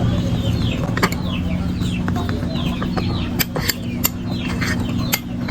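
Chicks peeping: a steady run of short, high, falling cheeps, several a second, with a few scattered sharp clicks and a low steady hum underneath.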